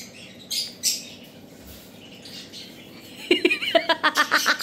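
Alexandrine parakeet calling: a couple of short squawks in the first second, then, about three seconds in, a loud fast run of harsh chattering calls, about seven a second.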